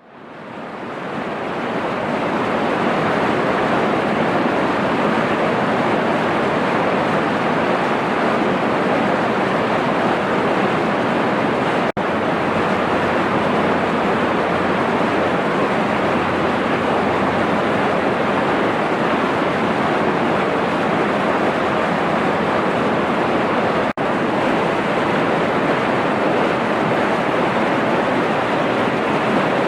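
Waterfall water pouring in a steady, even rush that fades in over the first couple of seconds, with two very brief dropouts about 12 and 24 seconds in.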